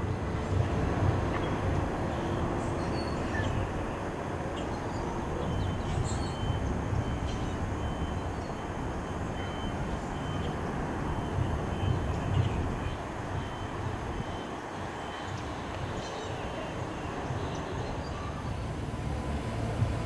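Steady outdoor ambient noise: a low, unevenly pulsing rumble under a hiss, with no single clear source.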